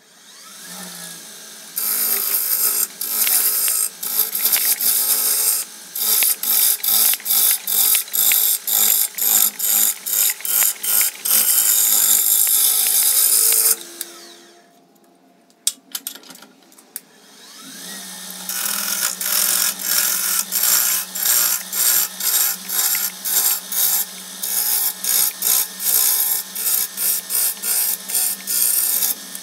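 Wood lathe spinning a log of wet cypress while a turning tool cuts it: a loud hissing cut broken into rapid repeated strokes, about two a second, over the lathe motor's low steady hum. The cutting stops for about three seconds midway, leaving only the hum, then resumes.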